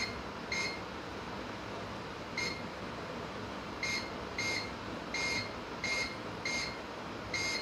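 Digital multimeter in buzzer (continuity) mode giving about nine short beeps, one each time the probe touches a test point on the phone's circuit board, over a steady background hiss. This is a check for short circuits on the board, and here no short is found.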